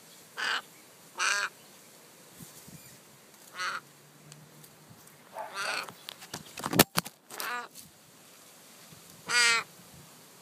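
Fledgling raven giving six short begging caws, a second or two apart. A single sharp knock of handling near the middle.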